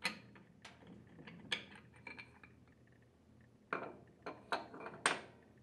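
A handful of separate light clinks and knocks as a plastic rod pushes the mechanical seal seat out of a gear pump's metal bracket, and the rod and seat ring are handled on a wooden bench. The loudest knock comes near the end.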